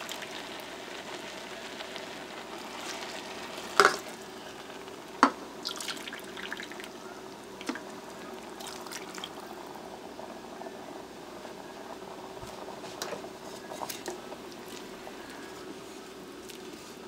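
Water being poured into a rice cooker pot of rice and split peas, a steady watery sound over a faint hum, with a few sharp knocks against the pot about four and five seconds in. Near the end a wooden spoon stirs the wet rice.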